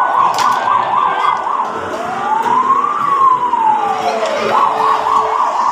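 Electronic siren sound: a fast warbling yelp of about four swoops a second, then one slow wail rising and falling over about three seconds, then the fast yelp again near the end.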